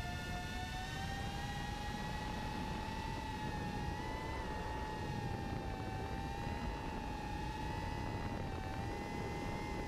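Brushless motors and propellers of a 5-inch FPV quadcopter whining in flight. The pitch rises over the first second, then wavers up and down with throttle changes, over a low rush of wind noise.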